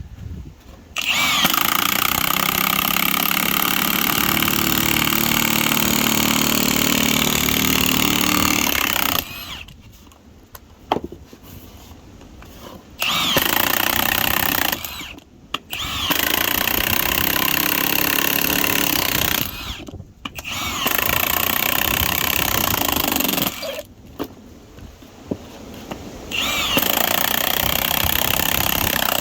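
Milwaukee M18 2767 high-torque impact wrench driving a spiral screw log-splitter bit into a dry sycamore log. It runs in five bursts: a long first one of about eight seconds, then four shorter ones of two to three seconds with brief pauses between.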